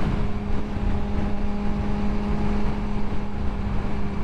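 Sportbike engine running at steady revs at highway cruising speed: one constant engine note that neither rises nor falls, over rushing wind and road noise.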